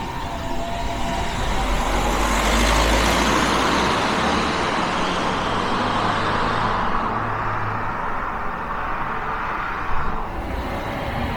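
Alfa Romeo MiTo 1.3 JTDM turbodiesel driving past: engine and tyre noise builds to a peak a few seconds in, then fades away. There is a short knock near the end.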